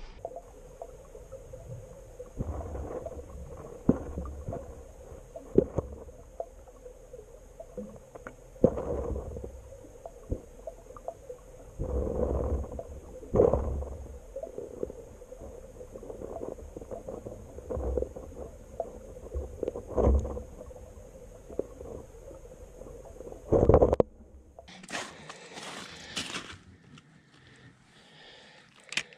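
Muffled sound from an underwater camera lowered through the ice: scattered irregular knocks and thumps over a steady faint hum. The hum cuts off suddenly, and a few seconds of rustling and scraping follow near the end.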